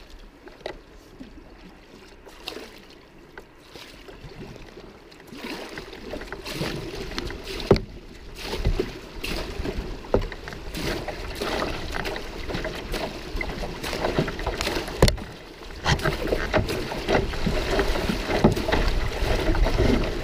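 Rapids rushing around a canoe as it runs them. The water grows louder from about five seconds in, with a few sharp knocks along the way.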